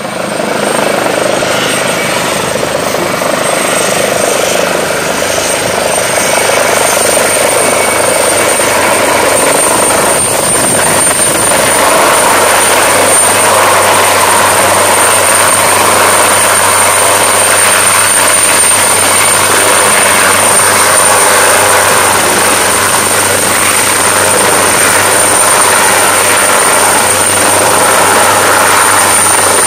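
A full-size helicopter approaching and then hovering low: steady rotor and turbine noise with a high-pitched turbine whine, growing louder over the first ten seconds or so and then holding steady.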